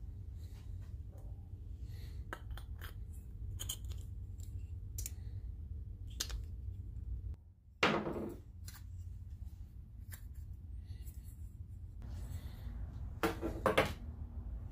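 Small metal parts being handled at a workbench: scattered light clicks and clinks over a steady low hum. There is a louder knock about eight seconds in and a quick cluster of clacks near the end.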